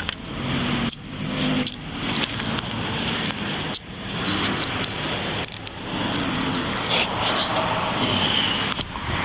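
Scuffling and clothing rubbing against a police body camera's microphone as a man is held down and handcuffed on the pavement, over steady road traffic noise, with a few sharp knocks.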